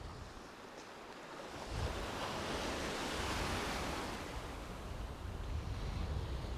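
Small sea waves breaking and washing into white water around the wader, with wind rumbling on the microphone. The wash swells up about two seconds in, then slowly eases.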